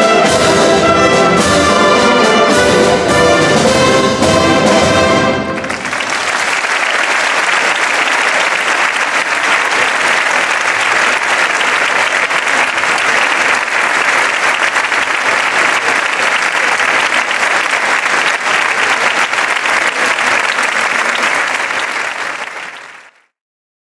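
A brass band plays the final bars of a processional march. About five seconds in, the music stops and an audience applauds for most of the rest, the applause fading away near the end.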